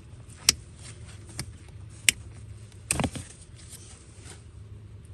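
Screwdriver and hand clicking and clattering against the blower motor's plastic housing and locking tab: two sharp clicks, then a louder clatter about three seconds in, over a steady low hum.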